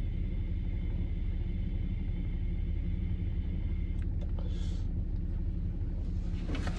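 Steady low rumble of a pickup truck's engine heard inside the cab, with a faint high whine that stops about four seconds in and a brief hiss just after it.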